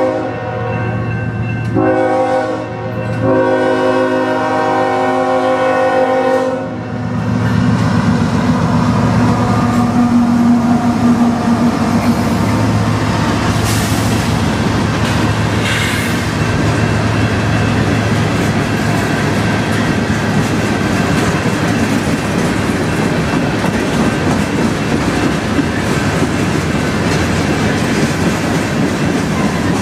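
Diesel freight locomotive's air horn sounding for the grade crossing: the end of one blast, a short blast, then a long blast that stops about seven seconds in. The Union Pacific locomotives then pass with a steady engine rumble, followed by a string of covered hoppers whose wheels clack on the rails.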